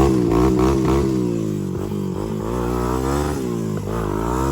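Honda TRX250X four-wheeler's single-cylinder four-stroke engine revving up and down over and over as the rider tries to pull out of a spot where the quad is stuck.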